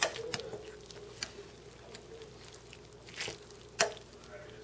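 Chunks of chicken and vegetables being stirred in a crock pot with a utensil: soft wet squishing, with a few sharp clicks of the utensil against the pot, the loudest a little under four seconds in.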